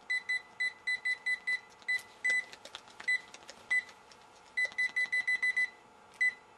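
Panasonic cordless phone handset's keypad beeping as its number keys are pressed to dial, each press giving one short high beep at the same pitch. The beeps come in quick runs, with a pause in the middle filled with light clicks.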